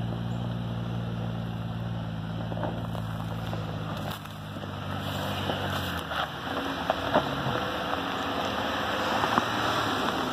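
Jeep Wrangler crawling over a rocky trail: its engine runs steadily at low speed, then from about halfway its tyres grind over rock and gravel with sharp cracks and pops of stones as it comes close.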